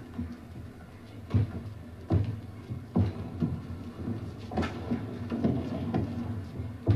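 Badminton rally: a string of sharp knocks roughly a second apart as the rackets strike the shuttlecock and the players' feet land on the court, over a steady low background of the hall.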